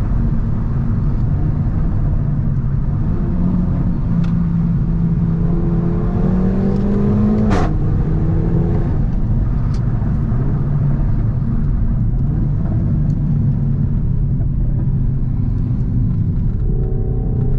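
Renault Mégane 4 RS 280's turbocharged four-cylinder, running without its catalytic converter, pulling under way with the engine note rising. At the top, about seven and a half seconds in, a single sharp crack comes from the exhaust as the revs drop. The note then runs steady and lower before climbing again near the end.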